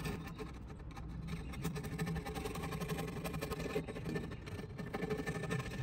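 Steel chisel scraping old gasket residue off the ceramic rim of a Big Green Egg, a continuous fine scratching, over a steady low hum.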